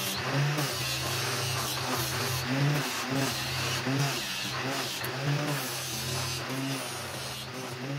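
Angle grinder fitted with a sanding disc and clamped in a bench jig, running steadily while a wooden block is pressed against the disc. The scraping of the wood on the abrasive swells and eases again and again as the block is pushed on and shifted.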